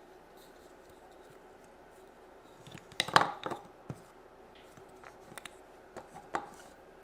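Pieces of a wooden play food set being handled: a quick cluster of knocks and clacks about three seconds in, then a few lighter clicks later.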